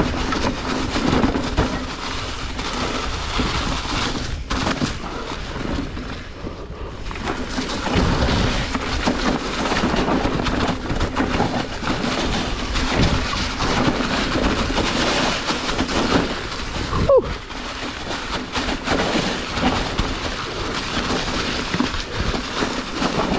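Mountain bike descending a steep trail: continuous rush of wind on the action camera's microphone and rough rumbling of the tyres over leaf-covered dirt, with a steady faint hum underneath and a brief squeak about 17 seconds in.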